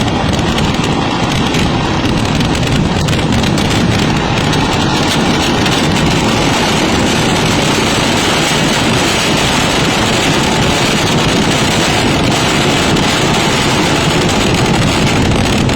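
Fireworks barrage: firecrackers going off so fast and so densely that the blasts merge into one loud, unbroken crackling din with no gaps.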